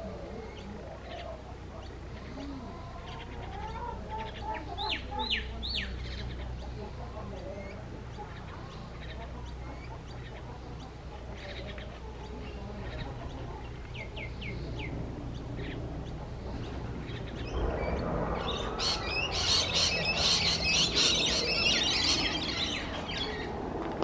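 Assorted Australian birds chirping and calling, with chickens clucking in the background and a low steady hum underneath. Short chirps come in scattered runs, then from about two-thirds of the way in a louder, denser burst of high chirping lasts several seconds.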